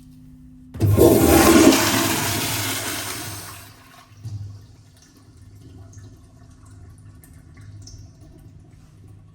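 American Standard Afwall wall-hung toilet flushing: a sudden loud rush of water about a second in, fading away over about three seconds, then a brief surge and faint water sounds as the bowl settles.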